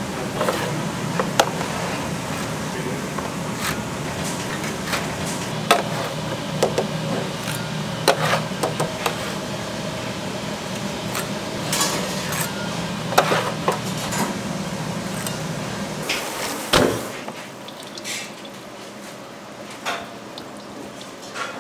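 Restaurant kitchen work: scattered clinks and knocks of utensils and dishes over a steady low hum. About 17 seconds in the hum drops away and the knocks become sparser.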